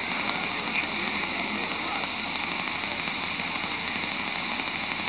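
Shortwave receiver in SSB mode giving a steady rush of static and hiss on the 20-metre amateur band, between transmissions.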